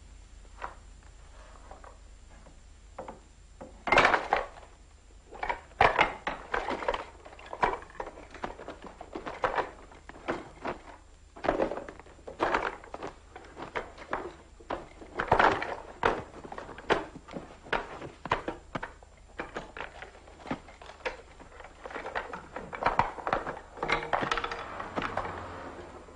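A room being searched: irregular knocks, thuds and clatters of wooden drawers and objects being pulled out, moved and dropped, with rustling of papers and clothing.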